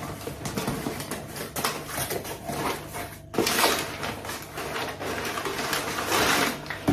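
A cardboard shipping box being opened by hand: flaps scraping and folding back, then brown kraft packing paper rustling and crinkling as it is pulled aside, louder from about halfway through.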